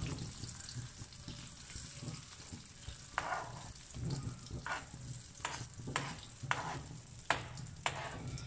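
Beaten eggs sizzling in hot ghee and butter in a nonstick frying pan, as a steel spoon spreads and scrapes the setting omelette. The spoon's scrapes against the pan come about twice a second in the second half, over a steady sizzle.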